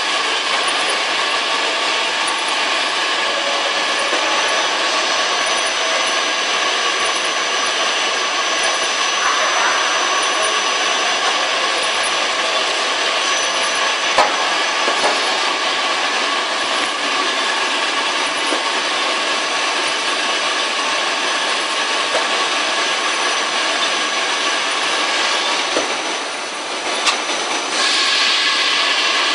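Industrial machinery running steadily: a dense, even noise with a thin high whine over it. There is one sharp click about halfway through, and the sound briefly dips and then comes back a little louder near the end.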